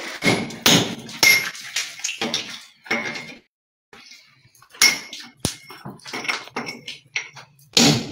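Hand hammer striking a steel chisel to chip into a masonry wall: a run of irregular, sharp metallic clinks that ring, with a short pause about halfway through.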